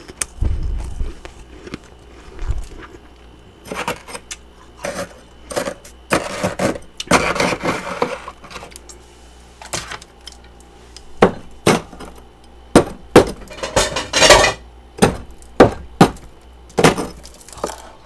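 Metal spoon chipping and scraping at thick frost caked inside a mini freezer. It starts with a couple of dull bumps, has a longer scraping stretch in the middle, and ends with a run of sharp, clinking strikes about one to two a second.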